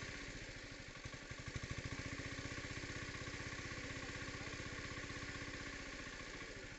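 A small engine running steadily with a fast, even beat.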